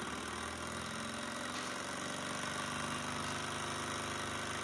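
Bohm HB14 twin-cylinder hot-air Stirling model engine running steadily, its linkages and flywheel giving a light, even, rapid mechanical patter: the sewing machine sound.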